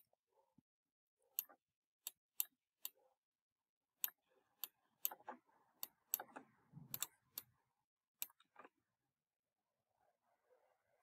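Faint, irregular sharp clicks, about fifteen of them, most bunched in the middle, from the pointing device used to handwrite on a screen-recorded digital whiteboard.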